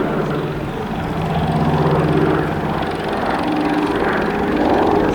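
Consolidated PBY Catalina's two Pratt & Whitney R-1830 Twin Wasp radial engines and propellers running in a steady drone, the level and pitch swelling and easing slightly.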